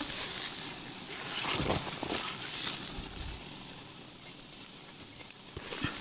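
Rustling of leaves and twigs as a person pushes through dense undergrowth, with a few scattered snaps and knocks.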